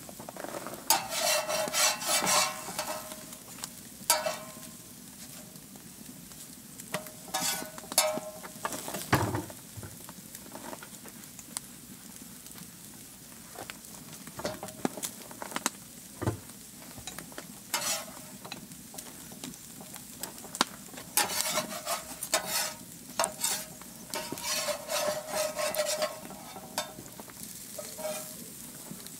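Wood fire crackling under a steel griddle as flour tortillas cook, with several clusters of rapid crackling a second or two long and a couple of dull knocks.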